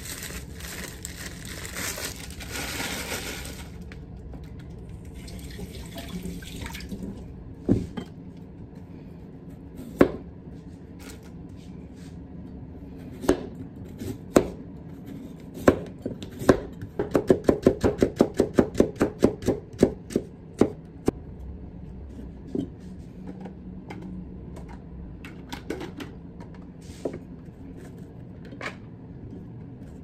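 Kitchen knife cutting a carrot on a wooden cutting board. Single chops come first, then a quick run of about three or four chops a second while the carrot is cut into thin strips, then a few scattered chops.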